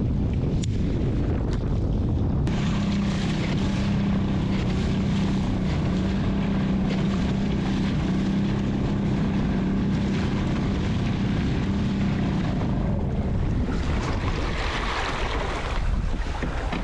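Strong wind buffeting the microphone while choppy sea waves wash and splash against a fishing kayak's hull. A steady low hum runs through the middle.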